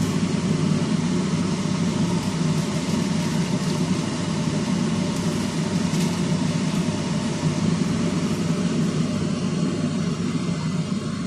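A steady low machine hum with an even rushing hiss, unchanging throughout.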